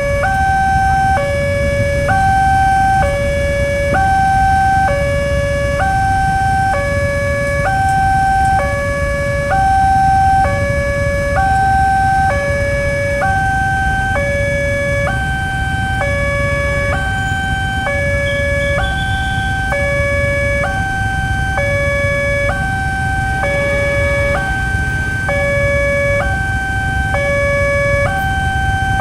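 Railway level-crossing warning alarm sounding its electronic two-tone signal, a high and a low note alternating about once a second, the warning that a train is approaching. A steady low rumble of idling motorcycles lies underneath.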